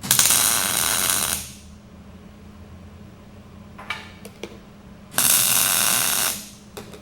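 Electric arc welder laying two short tack welds on steel plate, each a steady crackle lasting just over a second: one right at the start and one about five seconds in. A few faint clicks fall between and after the tacks, over a steady low hum.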